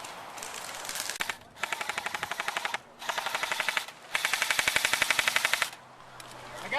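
Airsoft rifle firing on full-auto: three long bursts of rapid, evenly spaced shots, well over ten a second, with shorter bits of fire before them.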